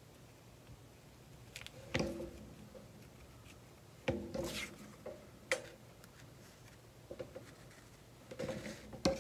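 Paper and card being handled on a cutting mat: a few soft taps, knocks and rustles as pieces are picked up, laid down and pressed flat, with quiet gaps between them.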